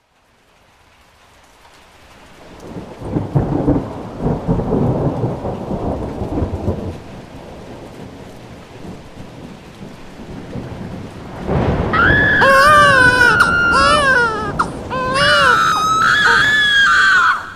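Rain falling with thunder rumbling for several seconds, then, about twelve seconds in, a newborn baby crying loudly over the rain in repeated cries that rise and fall in pitch, stopping abruptly near the end.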